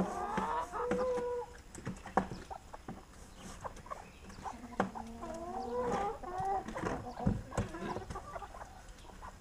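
A flock of chickens clucking and calling as they crowd in for scattered feed, with short sharp ticks scattered throughout. The calls come near the start and again a little past the middle.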